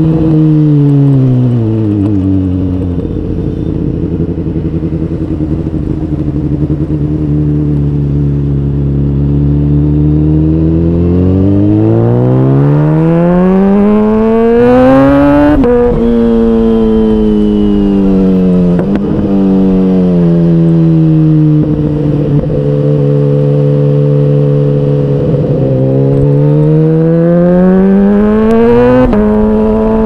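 Kawasaki Ninja H2's supercharged inline-four engine under way. The revs fall and hold low for several seconds, then climb smoothly for about four seconds to a sudden drop in pitch at a gear change just past the middle. After two brief dips and a steady stretch they climb again to another sudden drop near the end.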